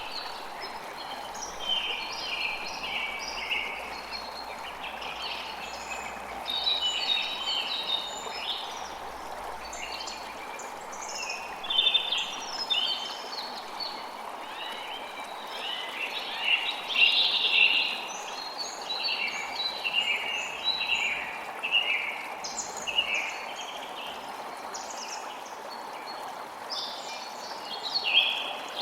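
Several birds chirping and calling continuously, their short overlapping calls loudest around the middle, over the steady rush of flowing water.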